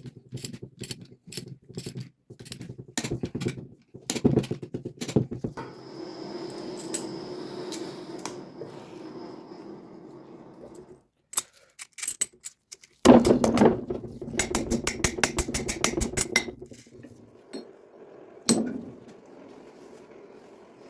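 Metal hand tools clinking and knocking against steel tractor parts, with a fast run of even clicks about fourteen seconds in.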